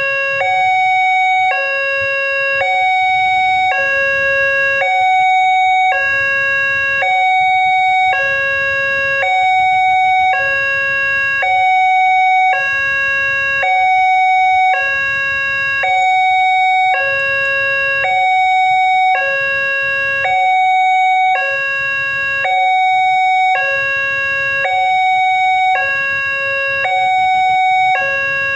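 Railway level-crossing warning alarm sounding from the loudspeaker on the crossing signal. It is an electronic two-tone chime, a low note and a higher note alternating steadily, the pair repeating about every one and a half seconds. It signals that the barriers are down and a train is approaching.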